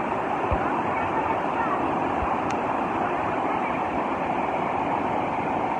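Muddy floodwater of a swollen river rushing through rapids: a steady, unbroken wash of churning water.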